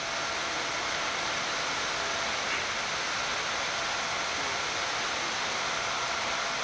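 Steady rushing noise on the flight deck of a Boeing 787-9 Dreamliner climbing after takeoff, with faint steady whining tones in it; the lowest of them fades out about two seconds in.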